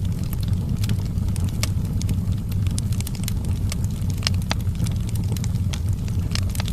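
Wood fire burning in a fireplace: a steady low rumble with irregular sharp crackles and pops, one or two a second.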